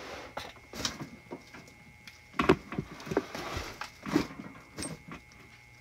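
Small folded paper note being unfolded by hand: irregular crinkling and rustling, loudest about two and a half seconds in and again around four seconds.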